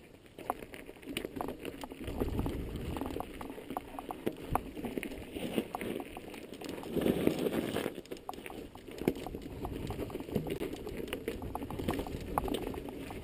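Mountain bike tyres crunching over a loose gravel and rocky trail, with frequent small clicks and knocks from stones and the bike rattling; briefly louder about seven seconds in.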